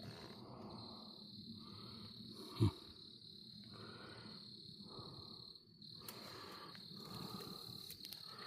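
Crickets chirping steadily in a continuous high trill, with one short low bump about two and a half seconds in.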